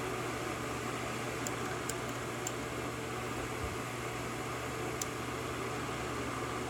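Steady hum and hiss of background noise, with a few faint light ticks as a lock pick works the pins of a Yale 5-pin pin-tumbler lock under light tension.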